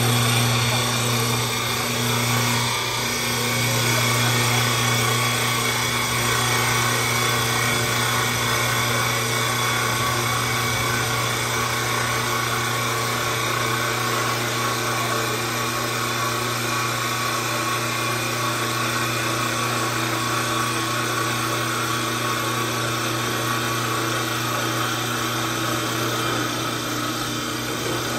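CNC wood lathe running steadily while its cutters shave a spinning wooden spindle: an even motor hum under a continuous rasp of wood being cut.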